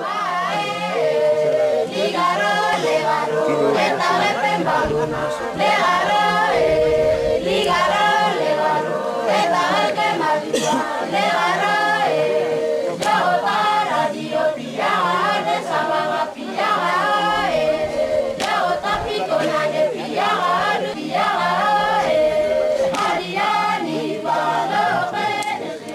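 A choir of voices singing unaccompanied, a cappella, as music over the end of the film.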